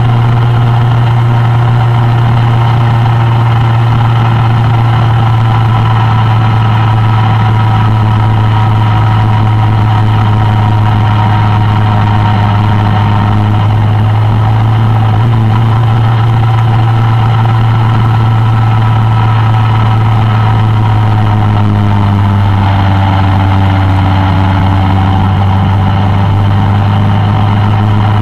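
Suzuki Bandit 1200's inline-four engine running at a steady cruise, recorded on board the motorcycle. The engine note changes about three-quarters of the way through, then holds steady again.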